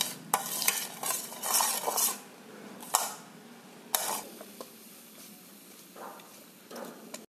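Panch phoran whole spices sizzling and crackling in hot mustard oil while a metal spoon stirs and clinks sharply against the pan several times. The sizzle is strongest in the first two seconds and dies down to a quieter hiss after about four seconds.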